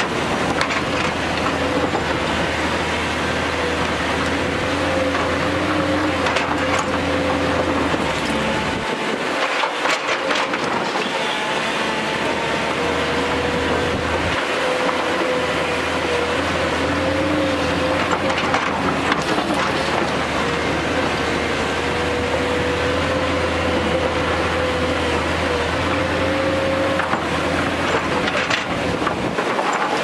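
JCB tracked excavator's diesel engine running steadily under digging load, with a wavering hydraulic whine, while the bucket scrapes through loose rock with scattered clanks and clatters.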